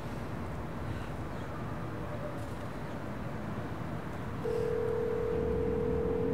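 Steady low city hum, then about four and a half seconds in a single steady phone ringing tone, held for about two seconds: the ringback of an outgoing call, the line ringing and not yet answered.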